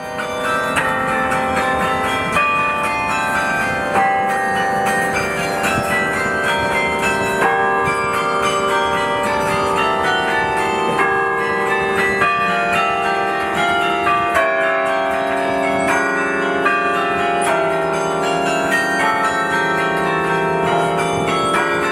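The bells of the Deeds Carillon playing a tune from the baton keyboard. Many bell notes are struck in quick succession, several a second, each ringing on under the next.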